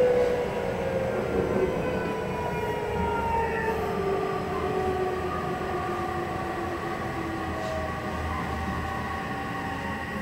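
Odakyu 3000-series electric train heard from inside: traction motor and inverter whine, several tones falling steadily in pitch as the train slows, over the running rumble of the wheels. This set's motor sound differs from that of other 3000-series trains.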